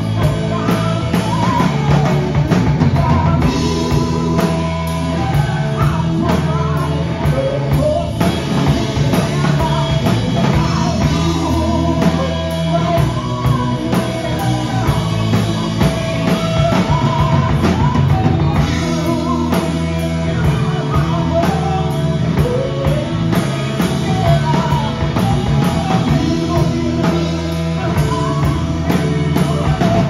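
Live rock band playing a song: electric guitar, bass, drum kit and keyboard, with a woman singing lead.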